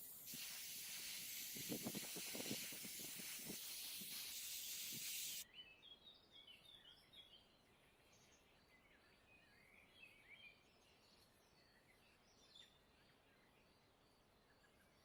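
A steady, high hiss of spraying for about five seconds that cuts off abruptly, with a few low knocks in its first half. Faint high chirps follow.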